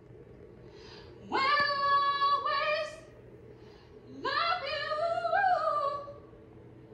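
A high-pitched voice singing long held notes in two phrases, each sliding up into the note, with a low hum between them.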